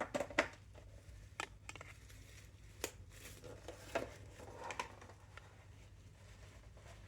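Handling noises from a plastic toy keyboard being moved about: several light knocks and clicks, the sharpest in the first half-second, with some rustling, and no notes played.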